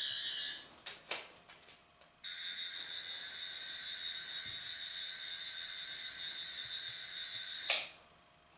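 Toy sonic screwdriver's electronic buzz: a short burst, a couple of clicks, then a steady high buzz lasting about five seconds that cuts off with a sharp click.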